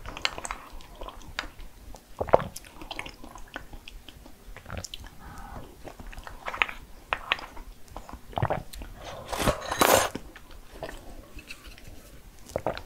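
Close-miked eating sounds: a person biting and chewing crunchy food, with scattered crisp crunches and one louder burst of crunching about ten seconds in.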